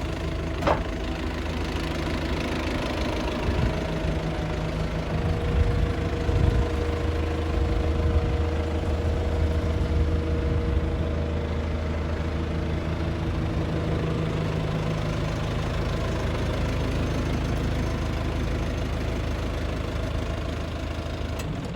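Diesel engine of a 2007 Mitsubishi BD2J2 swamp bulldozer running steadily at idle, with a brief click about a second in.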